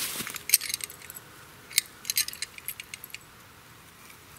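Dog-proof raccoon trap and its steel chain clinking and jingling in the hand, a quick irregular run of small metallic clinks.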